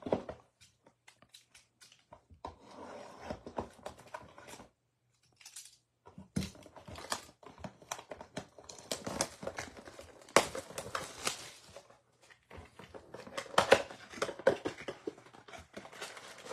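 Cardboard blaster box of trading cards being torn open by hand: crinkling wrap, tearing and scraping cardboard in irregular bursts with many small clicks and a few short pauses.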